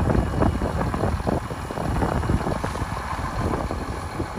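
Wind buffeting the microphone: a steady low rumble with irregular gusty flutter.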